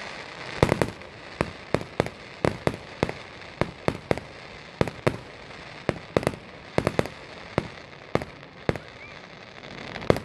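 Fireworks display: a rapid, irregular string of sharp bangs from aerial shells bursting, several a second at times, over a steady crackle.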